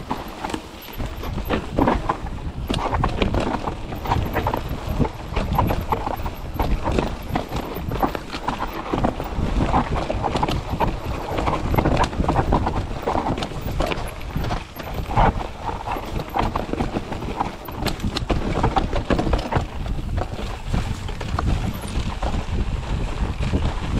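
Mountain bike being ridden over rough, rocky trail: a continuous irregular clatter of tyres on dirt and stones, with the chain and frame rattling.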